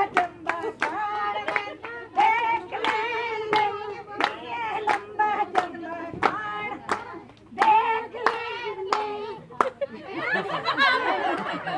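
A group of women singing a Punjabi gidda folk song and clapping their hands in time. Near the end the singing breaks up into overlapping voices.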